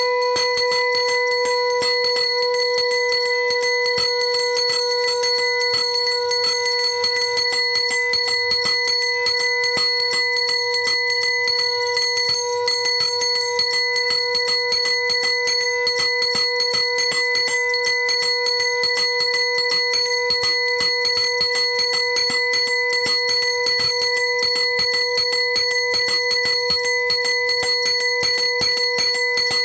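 Conch shells blown in a long, unbroken steady tone while bells are rung fast and continuously, as in a Hindu puja.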